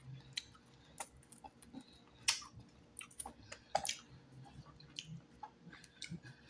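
A person chewing deep-fried turtle meat close to the microphone: irregular, sharp, wet mouth clicks and smacks.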